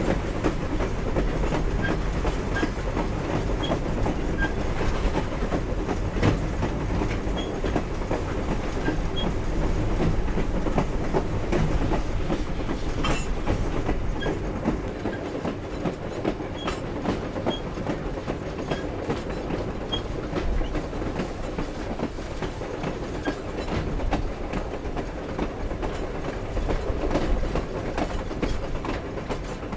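Steam-hauled passenger train's cars rolling on the rails: a steady rumble of wheels on track with frequent clicks and clanks, and small squeaks here and there. It eases a little from about halfway.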